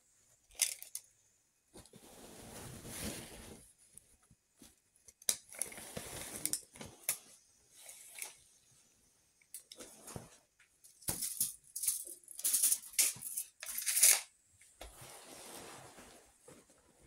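Stiff fabric rustling and crinkling as lengths of brocade and embroidered tulle are handled and spread out, in short irregular bursts with a louder cluster about eleven to fourteen seconds in.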